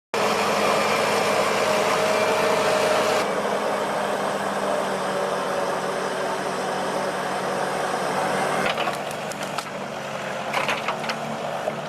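A heavy machine's engine running at a steady speed. Several short knocks and rattles come in the last few seconds.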